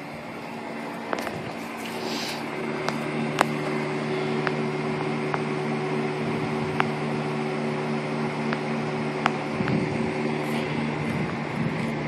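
2006 Pontiac GTO's 6.0-litre LS2 V8 idling steadily, with scattered sharp clicks every second or so.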